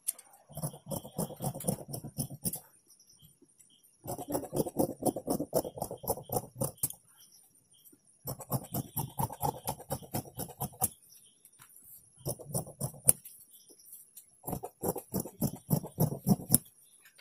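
Tailor's scissors cutting through two layers of folded blouse fabric: quick runs of rapid snips, about five runs of two to three seconds each with short pauses between them.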